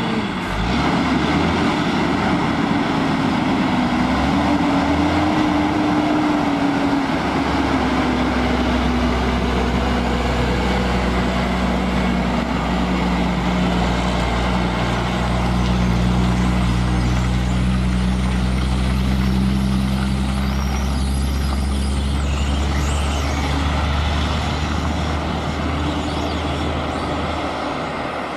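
Diesel engine of a loaded log truck hauling several trailers, running under load as it pulls away and drives past. Its pitch wavers in the first few seconds, then settles into a steady low drone.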